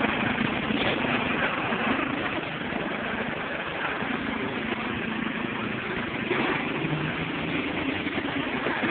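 Riding lawnmower's small engine running steadily.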